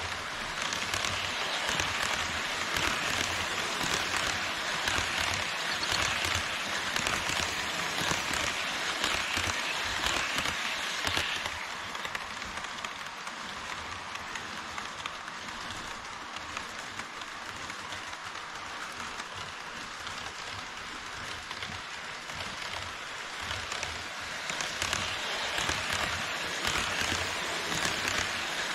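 HO scale model trains rolling on KATO Unitrack: a steady, dense clatter of metal wheels over the rails and rail joints. It is louder for the first ten seconds or so, softer in the middle, and louder again near the end.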